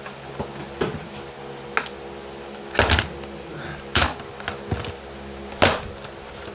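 A handful of sharp clicks and knocks from a hotel desk phone being handled as its cord is plugged in, over the steady hum of a fan.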